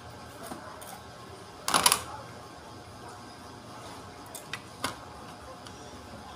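Parts of a forklift alternator handled on a workbench: a short loud metallic rattle about two seconds in, then a few sharp light knocks as the stator is set onto the alternator housing.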